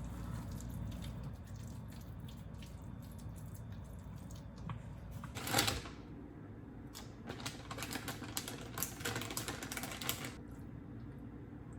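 A short burst of noise about halfway through, then a rapid run of light tapping for about three seconds, over a steady low hum.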